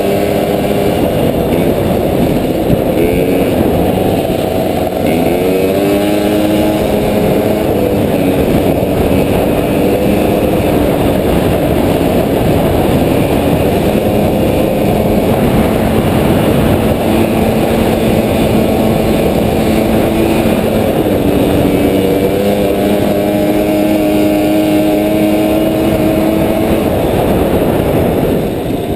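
Small moped engines running under way on a dirt track, heard from the handlebar of one of the mopeds, the engine pitch rising and falling several times with the throttle.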